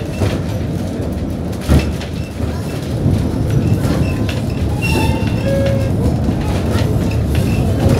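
Heritage railway carriage running along the track, heard from on board: a steady rumble and rattle with wheels clicking over rail joints, and one sharp knock about two seconds in.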